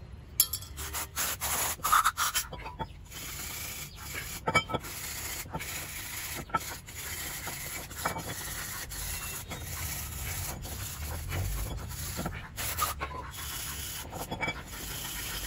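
A stiff hand brush scrubbing the removed cast-iron brake caliper bracket, a steady scratchy rubbing broken by a few sharp knocks of metal in the first half.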